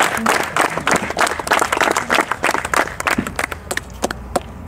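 Crowd of cadets applauding, dense clapping at first that thins to a few scattered claps and dies away near the end.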